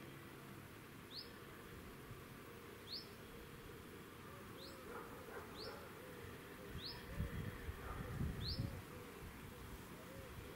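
A bird repeating a short rising chirp every second or two over quiet outdoor background noise. A low rumble swells in the second half.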